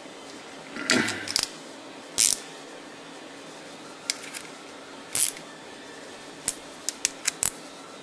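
Small clicks and scrapes of hands handling a plastic Walbro fuel pump and threading its cover-plate screws in by finger: a short cluster of scrapes about a second in, scattered single clicks, then several quick ticks near the end, over a faint steady hum.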